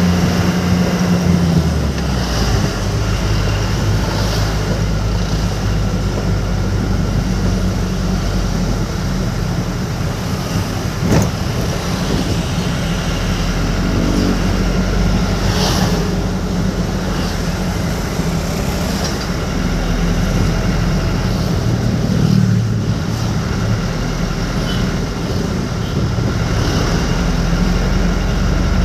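Road vehicle driving along: a steady engine drone with road noise, and a brief knock about eleven seconds in.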